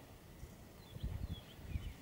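Quiet bush ambience: faint, short, high bird chirps, with a few low muffled thumps about a second in and again near the end.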